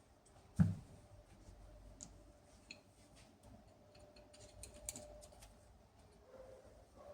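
Small clicks and light taps of things being handled, with one dull knock about half a second in, over a faint steady hum.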